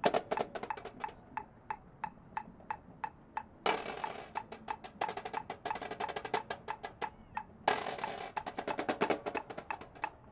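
Marching percussion drumline playing a passage of its show music over a steady metronome click of about two and a half ticks a second. It starts as a softer passage and gets much louder and fuller about a third of the way in.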